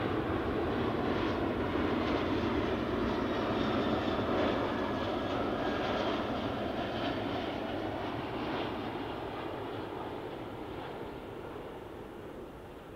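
Jet airliner passing on its landing approach, engine noise building to a peak about four seconds in, then fading steadily away.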